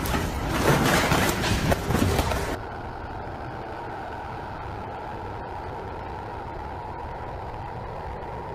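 Landslide on a mountainside: rock and earth crashing down in a loud, continuous rumble. About two and a half seconds in it cuts off abruptly, leaving a steady low hum with a faint tone.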